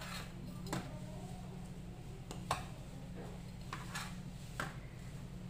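Metal spatula clicking and scraping against a metal baking tray as baked biscuits are lifted and flipped over: about six sharp clicks, the loudest about halfway through, over a low steady hum.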